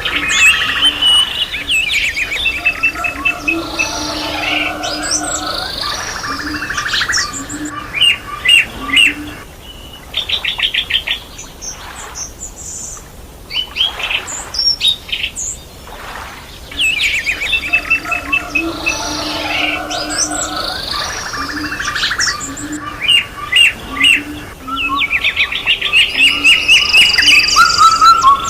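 A chorus of several songbirds chirping and singing over one another, with rapid trills and whistled calls. The calls thin out for several seconds midway, then the full chorus returns.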